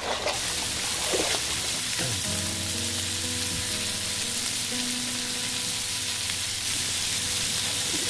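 Slices of pork belly sizzling steadily on a round grill pan over a portable gas stove. The sizzle starts abruptly a moment in.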